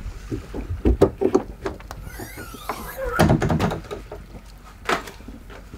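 A door being opened and handled aboard a boat: several sharp knocks and a short scraping slide, over the steady low hum of the running generator.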